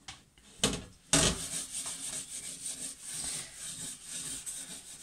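A scourer scrubbing the wet glass panel of an oven door in quick back-and-forth strokes, giving a steady rasping scratch. Two sharp knocks come about a second in.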